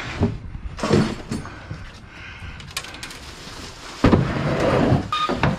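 A wooden cabinet being carried and handled, with a few short knocks and bumps, then about four seconds in a sudden loud scrape lasting over a second as it is pushed into a truck.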